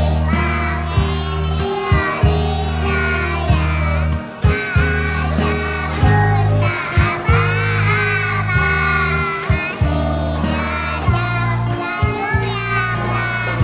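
Children singing a song together over backing music with held bass notes and a regular beat.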